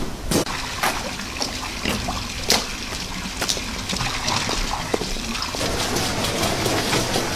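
Rainwater dripping and trickling, with scattered sharp taps.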